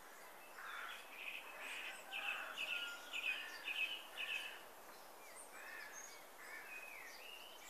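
Faint birdsong over a light outdoor hiss: a run of about six quick repeated chirps from about a second in, then softer whistled calls rising and falling near the end.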